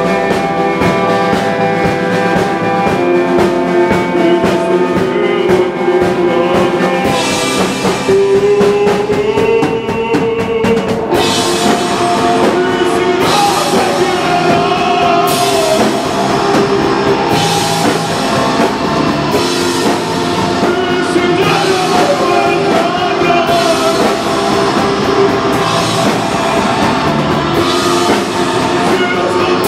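Live rock band playing loud: drum kit, electric bass and electric guitar, with a singing voice. About a third of the way in the band hits harder, with cymbal crashes landing about every two seconds.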